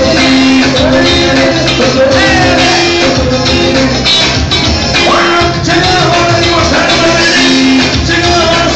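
Loud live band music with an electric guitar over a steady, driving beat.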